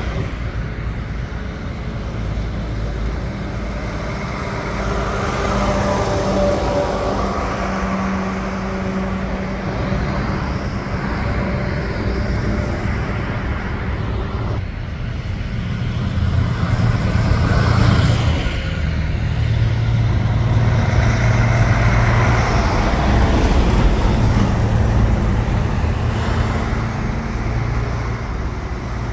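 Heavy trucks driving past on a town street: diesel engines running under tyre and traffic noise, swelling to the loudest passes about two-thirds of the way through.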